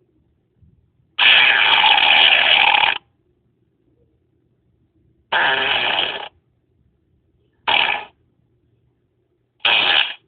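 Fart sounds played one after another: a long one of nearly two seconds, then three shorter ones, each starting and stopping abruptly with brief quiet gaps between.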